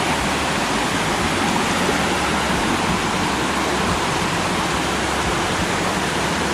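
Rushing water of Soco Falls and its rocky creek cascading over boulders, a steady, even hiss.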